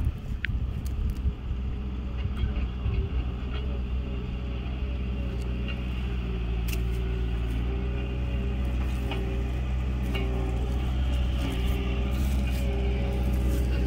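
An engine running at a steady idle, a low even hum, with a few light clicks and rustles over it.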